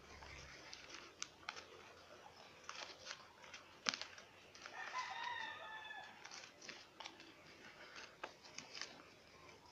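A rooster crows once, faintly, a single drawn-out call of about a second and a half around the middle. Around it come light clicks and crinkles of paper being handled, with one sharper click just before the crow.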